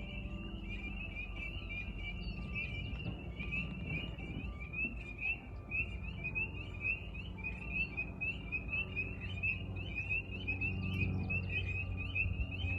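A dense outdoor chorus of high, short chirping calls, many overlapping notes repeating without a break, over a steady low rumble.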